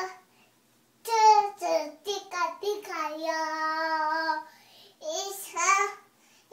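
A toddler girl singing in a high child's voice: short sung syllables, a long held note in the middle, then a few more short notes.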